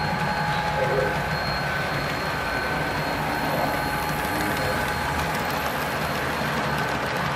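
Model train pulled by two FP7 diesel locomotives rolling along the track and over a trestle: a steady rolling rumble of wheels and motor hum, with a faint steady whine.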